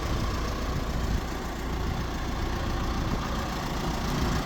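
1996 Cat 436B backhoe loader's turbocharged diesel engine idling steadily through its new muffler.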